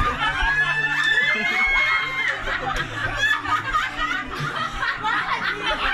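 A group of people laughing loudly together, with high shrieks and squeals of laughter among them.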